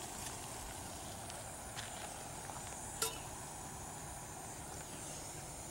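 Small screw-on canister gas stove burning with a steady hiss, with a single light metal clink about three seconds in as the metal mug comes off the burner.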